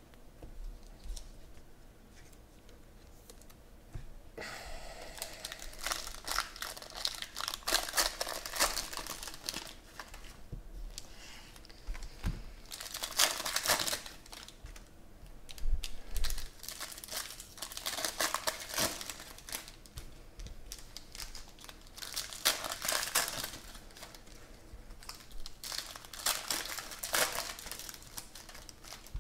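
Foil wrappers of Panini Prizm football card packs crinkling and tearing as they are ripped open by hand, in repeated bursts starting about four seconds in.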